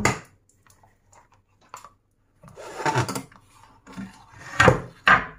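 A knife scraping around the inside rim of a round cake tin to loosen a freshly baked cake, in a few scraping strokes, after a knock as the tin is set down at the start.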